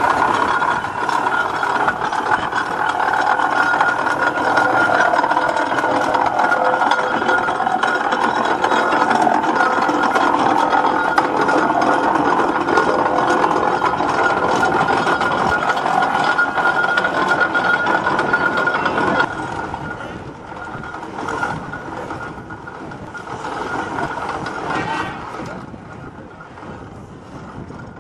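Steam traction engine running as it drives past, with people's voices around it; the sound drops abruptly about two-thirds of the way through.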